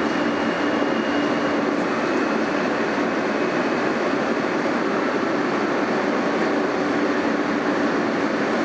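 Steady running noise heard from inside an R160A subway car as it pulls into a station: wheels on rail and traction motors, with a low hum and a faint high whine over the first couple of seconds.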